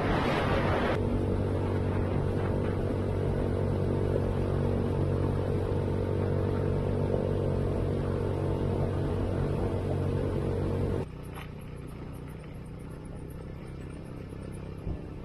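Motor tricycle running at a steady pace while being ridden, with wind on the microphone in the first second. About eleven seconds in the sound drops to a quieter, lower hum.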